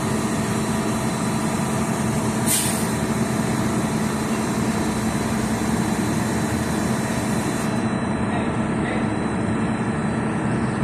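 Heavy diesel engine running steadily, with a brief hiss about two and a half seconds in, as a backhoe is being loaded for transport.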